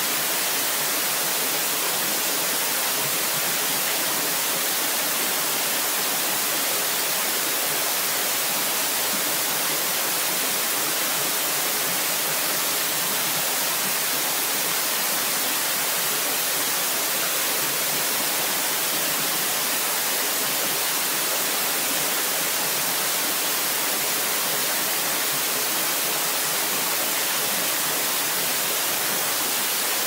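Small waterfall pouring from a rock overhang into a shallow pool, a steady, even rush of falling water with a strong hiss and no change throughout.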